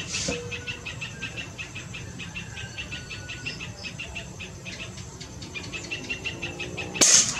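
Insects chirping in a steady rhythm, several chirps a second. Near the end comes one sharp, loud report from a PCP air rifle firing.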